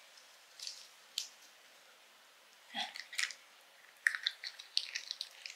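Cat biting and chewing at a plastic Churu lick-treat tube: a few soft smacks at first, then a quick run of sharp little clicks and bites from about four seconds in.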